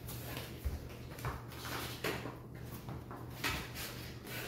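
Paper slips rustling as they are handled and picked out of a cup on a table, with a few light knocks and a dull thump about a second in.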